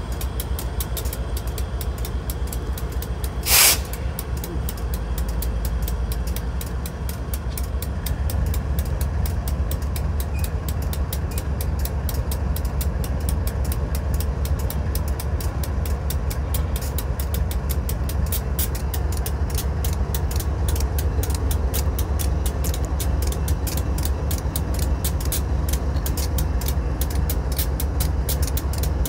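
Diesel engine of a BNSF GE ES44C4 locomotive (GEVO V12) running with a steady deep rumble, which grows louder from about eight seconds in. About three and a half seconds in there is a brief loud hiss.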